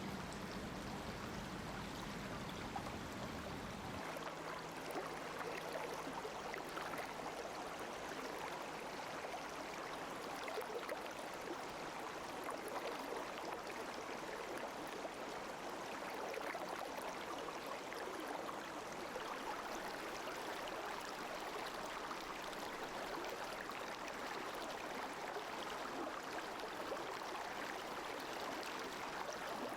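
Steady rushing of a flowing river. A low rumble underneath drops away about four seconds in.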